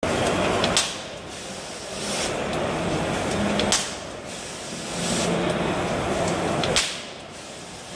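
Soyer KTS-1050 CNC stud welding machine running an automatic cycle: a steady mechanical hiss that ends in a sharp snap, three times, about three seconds apart.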